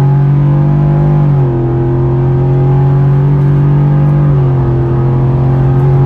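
Ford F-150's 5.0 V8 at wide-open throttle on its stock intake manifold and tune, heard from inside the cab as the truck accelerates hard. The engine note climbs steadily and drops twice, about a second and a half and four and a half seconds in, as the automatic transmission shifts up.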